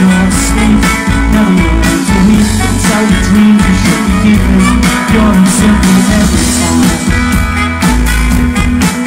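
Live rock band playing loud through a club PA: electric guitars, bass and a steady drumbeat.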